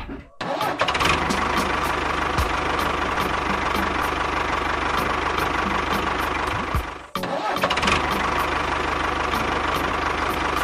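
Tractor engine sound running steadily with a regular knocking beat. It drops out briefly about a third of a second in and again about seven seconds in.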